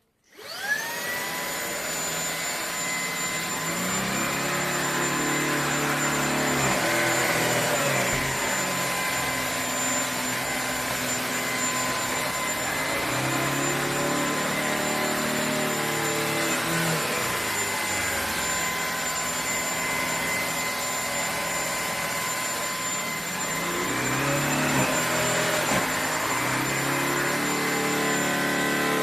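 Shark PowerPro cordless stick vacuum cleaner switched on, its motor whine rising within about a second and then running steadily, with a lower hum that shifts in pitch now and then.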